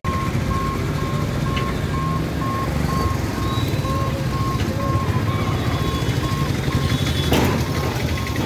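Level-crossing gate warning beeper sounding a steady, evenly repeated high beep about twice a second as the barrier boom lowers, over the rumble of motorbikes and other vehicles crossing. A single sharp knock near the end.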